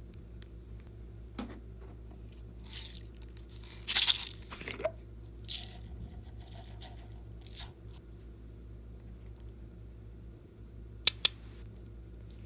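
Crinkly, tearing-like rustles from hands handling slime and the things being mixed into it, the loudest about four seconds in, followed by two quick sharp clicks near the end.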